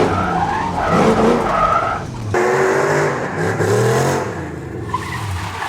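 Car engine revved several times through its exhaust, the pitch rising and falling with each rev.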